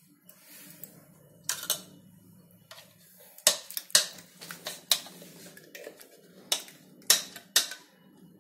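Silicone spatula and stainless-steel mixer-grinder jar knocking and clicking as spinach paste is scraped from the jar into a kadai. There are about nine sharp knocks, irregularly spaced and louder in the second half.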